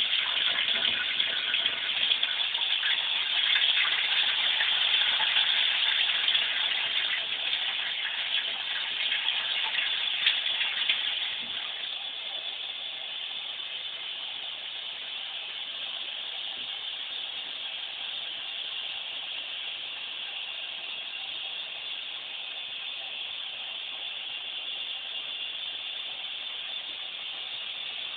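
Water running steadily into a bathtub from the tap, louder and rougher for the first eleven seconds or so, then settling to a quieter, even flow.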